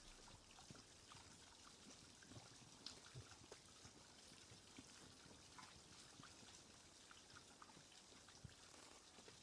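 Near silence: a faint steady hiss with scattered faint ticks and soft knocks.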